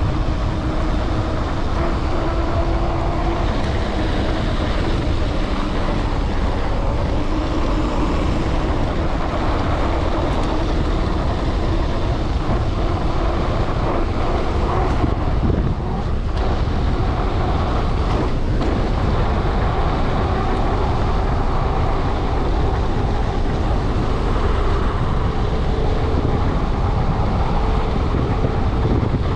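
Schwalbe Ice Spiker Pro studded mountain-bike tyres rolling downhill over packed snow: a steady rushing tyre noise with wind buffeting the microphone and a faint hum that drifts in pitch with speed.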